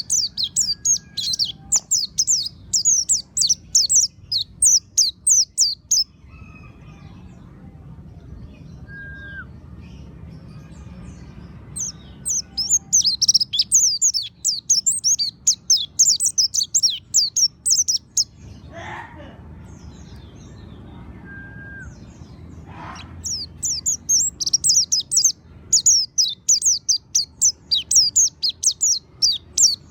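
Pleci monty (mountain white-eye) singing: fast, high twittering song in three bouts of about six seconds each, with pauses between them over a low steady hum.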